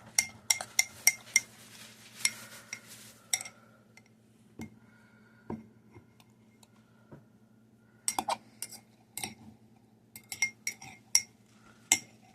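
A metal fork whisking eggs in a ceramic egg cooker, clinking rapidly against the dish, about five clinks a second. The clinking pauses to a few scattered taps in the middle, then picks up again near the end.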